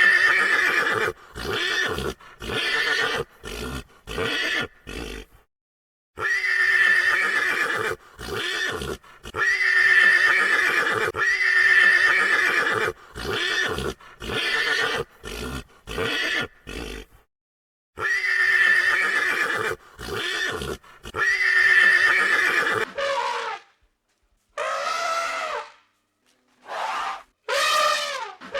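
An animal calling over and over in loud bursts of about a second each, with short pauses between. Near the end come a few shorter calls that glide in pitch.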